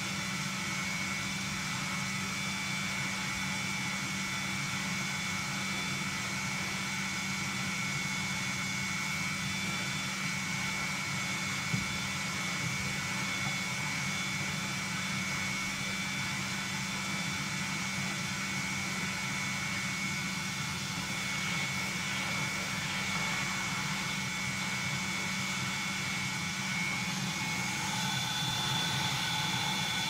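Gordon Major cylinder vacuum cleaner running steadily while carpet is vacuumed: an even motor whine with several held tones over a low hum. Near the end the tone shifts slightly.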